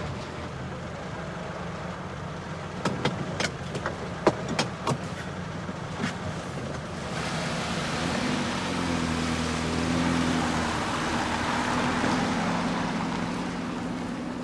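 A car engine running as the car drives off, with a scatter of sharp clicks a few seconds in. From about halfway, the noise grows louder and fuller and steady low tones join it.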